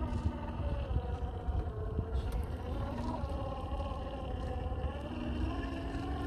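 Drivetrain whine of a 1/10 scale RC crawler, its Hobbywing Fusion 1800kv brushless motor and gears changing pitch up and down as the throttle varies, over a steady low rumble.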